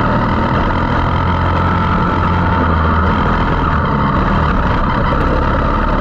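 Briggs & Stratton LO206 single-cylinder four-stroke kart engine running hard and steady on track, heard loud from an onboard camera mounted right by its exhaust silencer.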